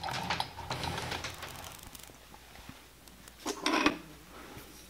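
Faint metallic clicks from hand-handling a large lathe's chuck and cam-lock spindle nose, with one short metal scrape and clunk about three and a half seconds in.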